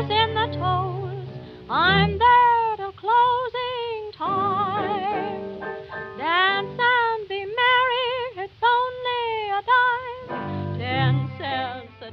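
Background music: a woman singing sustained, wavering notes with heavy vibrato over an instrumental accompaniment.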